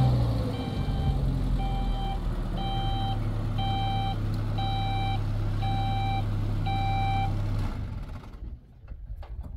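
Pickup truck reversing, its reverse alarm beeping about once a second over the steady low running of the engine. Near the end the beeping stops and the engine is switched off.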